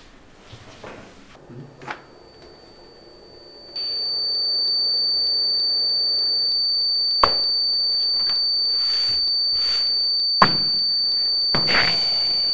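A steady, high-pitched electronic tone, starting faintly about a second and a half in and turning loud near four seconds, then holding unchanged. Two sharp clicks sound over it, and there is a short rustle near the end.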